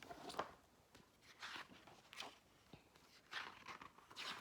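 A handful of short paper rustles from a picture book being handled and its pages turned, the first, near the start, the loudest.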